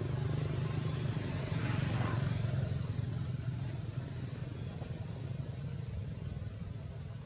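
A motor engine running steadily in the background as a low hum, slowly fading away, with faint high chirps near the end.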